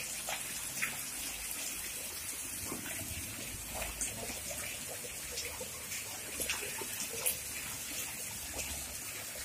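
Hot-spring water pouring from pipe spouts into concrete basins and trickling along a runoff channel: a steady splashing with small drips and splashes scattered through it.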